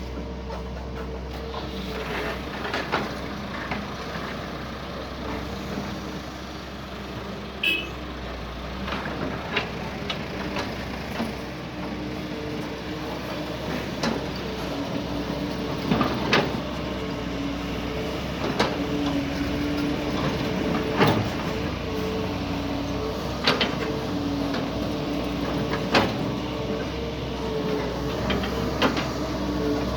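Doosan DX140 excavator's diesel engine running steadily under work, with sharp knocks and clanks every few seconds.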